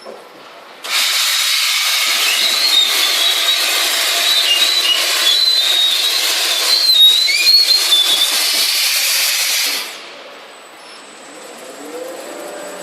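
CNC V-grooving machine's cutting tool planing a V groove along a metal sheet in one pass: a loud hissing screech with a wavering high squeal. It starts suddenly about a second in and stops near ten seconds.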